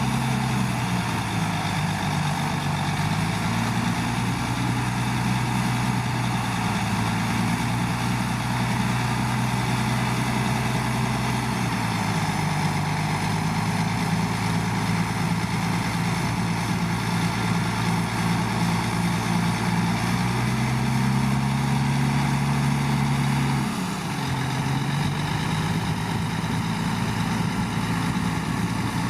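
Shantui bulldozer's heavy diesel engine running, its pitch shifting up and down several times as the load changes, with a short drop in engine speed near the end.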